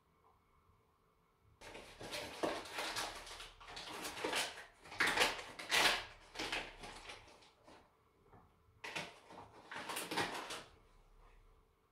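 Flour bag and cocoa powder packet crinkling and rustling as they are handled and tipped out into a bowl: a long stretch of crackly rustling, a short pause, then a shorter stretch.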